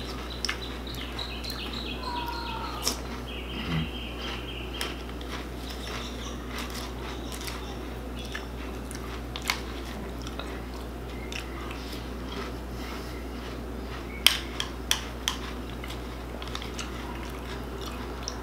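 Someone eating Cocoa Pebbles: a plastic spoon clicking and scraping against a plastic bowl between bites of crunchy cereal being chewed. A quick run of sharper clicks comes about fourteen seconds in.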